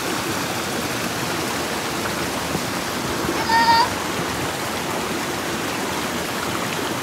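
Steady rushing of a stream, with one brief high-pitched call about three and a half seconds in.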